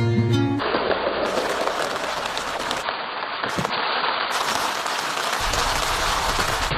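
Heavy rain falling, a dense steady crackle of drops, after guitar music cuts off right at the start. A low rumble joins in near the end.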